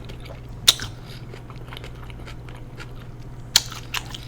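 Close-miked chewing and mouth sounds of someone eating instant noodles, with two sharp clicks, one about a second in and one near the end.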